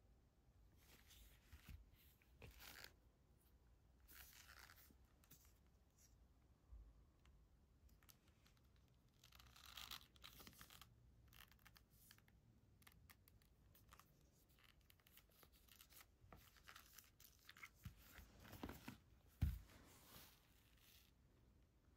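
Faint handling noises of leather sandals: scattered rustling and scraping as the straps and soles are turned and worked, with a longer rasping patch about halfway through and a single soft knock near the end.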